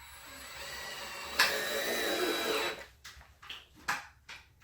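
Electric drill/driver motor running with a whine that wavers in pitch. It grows louder over the first second and a half, jumps louder, then stops a little before three seconds in. A few light knocks follow.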